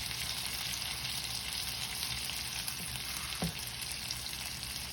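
Ribeye steak sizzling steadily in a hot pan of oil and butter, a continuous frying hiss.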